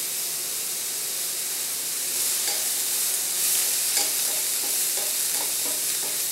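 Sliced shiitake mushrooms, red onion and chopped fresh parsley and cilantro sizzling in a wok while a wooden spatula stirs them: a steady frying hiss with light scrapes and knocks of the spatula against the pan. The sizzle grows louder about two seconds in.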